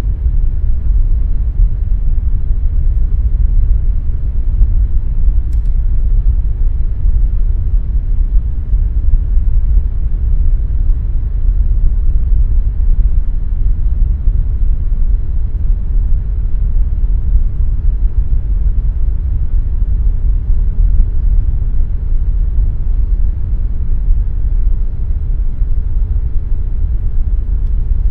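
Air conditioner running steadily: a loud, even, low rumble of air and fan noise with a faint steady hum above it.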